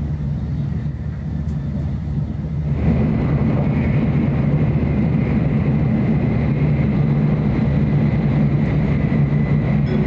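Tokaido Shinkansen running noise heard inside the passenger cabin: a steady low rumble that gets louder and fuller about three seconds in.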